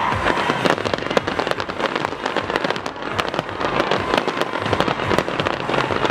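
Fireworks crackling and popping in rapid, dense succession.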